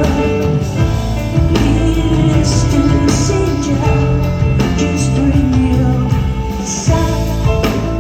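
Live band music with drums and a woman singing over sustained keyboard-like tones.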